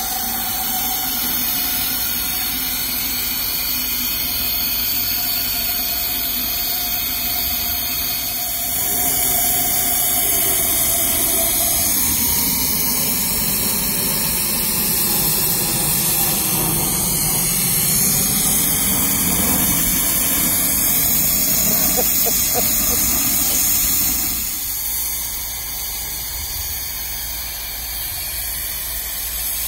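A miniature ride-on live-steam locomotive hissing steam steadily. A jet airliner passes overhead, growing louder about nine seconds in, sweeping down and back up in pitch, and dropping away about twenty-four seconds in. Near the end the locomotive moves off with steam blowing from its cylinder drain cocks.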